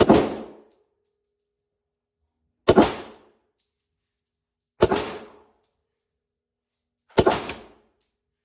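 Four single shots from a Beretta 92S 9mm pistol, two to two and a half seconds apart, each with a short echoing tail.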